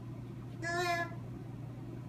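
A toddler makes one short, high-pitched vocal sound about half a second in.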